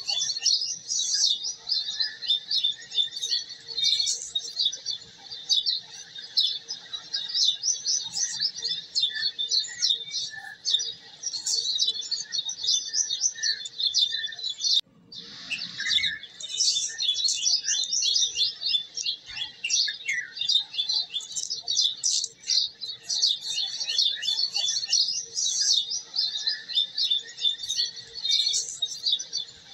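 A dense, continuous chorus of many small birds chirping rapidly, with a momentary break about halfway through.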